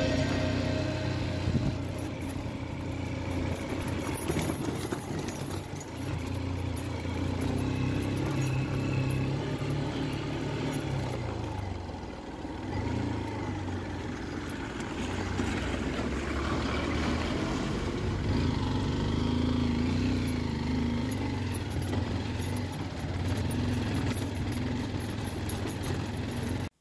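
Honda XR150L's single-cylinder four-stroke engine running as the bike is ridden over a dirt road, with road noise. The engine note drops about twelve seconds in, then rises and holds again.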